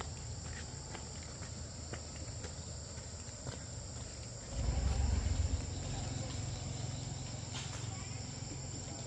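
Insects chirring steadily in a high, even tone, with a low rumble underneath that swells louder about halfway through and a few faint clicks.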